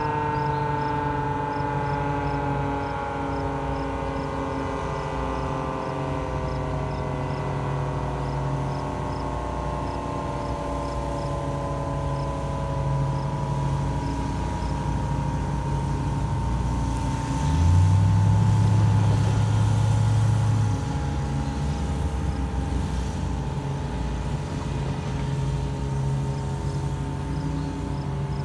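Federal Signal 2T22 dual-tone outdoor warning siren winding down at the end of its test run, its chord sliding slowly lower in pitch. A vehicle engine runs close by underneath it and gets louder for about three seconds past the middle.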